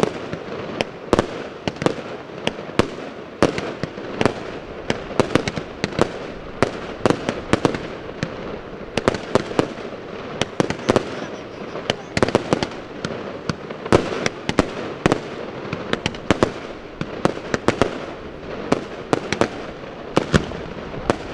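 Aerial firework shells bursting in a rapid, irregular series of sharp bangs, several a second, over a steady background noise.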